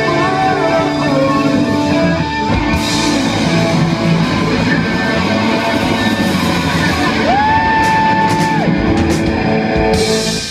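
Live rock band playing loudly: electric guitars, bass guitar and drum kit, with a long held note about three quarters of the way through.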